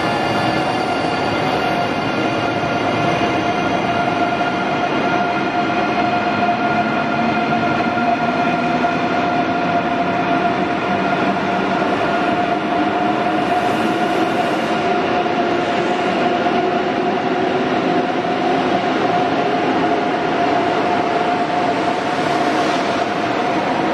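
Deutsche Bahn ICE electric high-speed train pulling out and gathering speed alongside the platform. Its electric drive gives off a steady whine, and a lower tone slowly rises in pitch over the rumble of the wheels on the rails.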